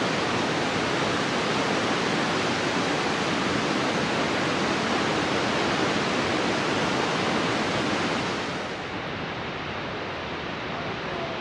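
Dam release water rushing in a loud, steady noise, first a jet blasting from an outlet beneath the dam. About eight seconds in, it changes to a quieter, duller rush of water spilling over the dam crest.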